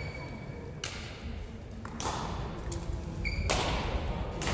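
Sports shoes squeaking and thudding on a wooden court floor, with short squeaks near the start and about three seconds in. Sudden noisy bursts about 1, 2 and 3.5 seconds in.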